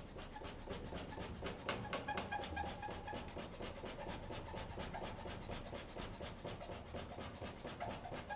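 Wood fire crackling steadily just after being stoked: many quick small crackles, with two sharper pops about two seconds in.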